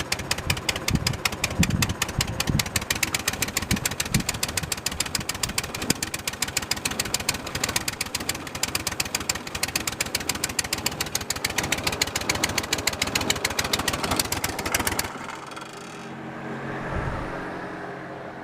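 Backhoe engine running rough through a Harley-Davidson exhaust, its firing rapid and uneven with irregular heavy thumps. About 15 seconds in it drops off suddenly to a much quieter, steadier sound. The rough, jumping running shows a fault that a new carburetor has not cured; the owner wonders whether a bound-up hydraulic pump is loading the engine.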